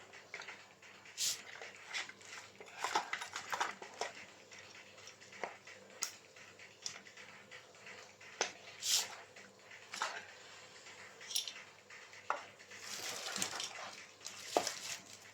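Metal engine parts being handled on a bench: irregular clinks, taps and clatter, with a brief scraping stretch near the end.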